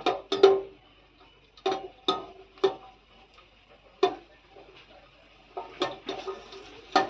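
A metal spatula tapping and scraping against a stainless-steel pan as cashews and raisins are stirred in hot ghee. There are about ten irregular taps, each ringing briefly, coming closer together near the end, over a faint sizzle.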